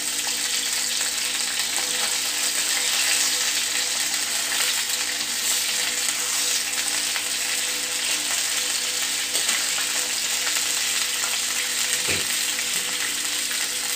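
Chicken pieces sizzling in hot ghee in a black wok, lightly frying at the first stage of cooking, while a slotted metal spatula stirs and turns them. There is a steady frying hiss and a soft knock about twelve seconds in.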